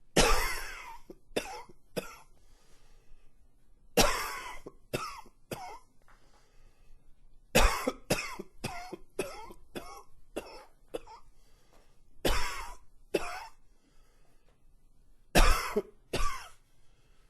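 A man coughing in a fit: about five bouts of two to nine coughs each, every bout opening with its hardest cough and trailing off into weaker ones, with short pauses between.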